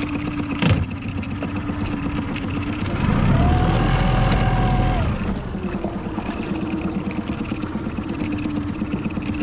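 Small outboard motor on an aluminium tinny idling steadily, briefly throttled up for about two seconds near the middle, its pitch rising and then falling back to idle. A sharp knock comes just under a second in.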